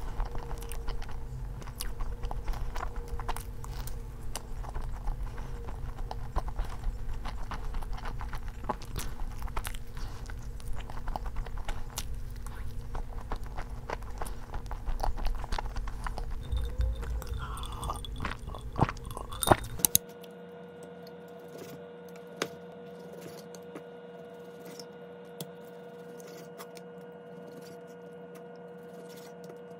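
Close-miked chewing and biting of a soft rolled dessert, wet mouth clicks and smacks, with a couple of sharper clicks just before it ends. About two-thirds of the way through it cuts off suddenly to a quieter steady hum with a few light knocks of a kitchen knife cutting raw chicken on a wooden board.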